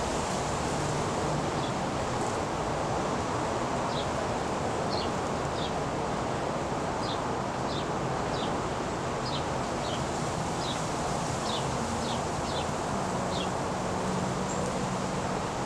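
A steady rushing background noise, with about fifteen short, high chip calls from small birds scattered irregularly through it.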